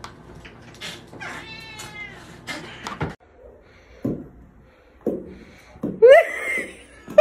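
Cat meowing in short calls, then a louder rising yowl about six seconds in.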